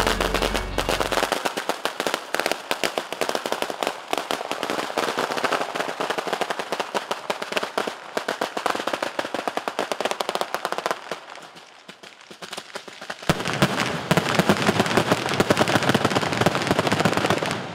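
Ground-level fireworks: firecrackers going off in rapid succession, a dense crackling rattle of bangs. It thins out about eleven seconds in, comes back louder with a heavier burst about two seconds later, and stops just before the end.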